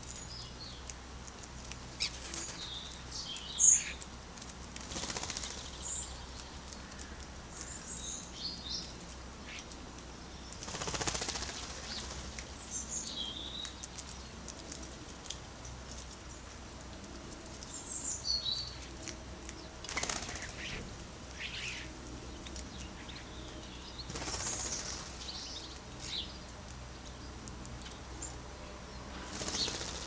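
European starlings at a garden feeder: repeated short flurries of wingbeats as birds fly on and off, with brief high chirps and calls scattered between them. A single sharp chirp about four seconds in is the loudest sound.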